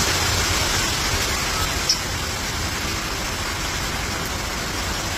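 Heavy thunderstorm rain pouring down, a steady hiss, with one short click about two seconds in.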